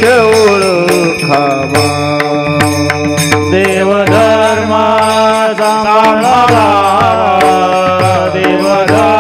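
Marathi devotional kirtan singing: a man's voice holds and bends a long melodic line over a steady drone. Small brass hand cymbals (tal) clash in a running rhythm.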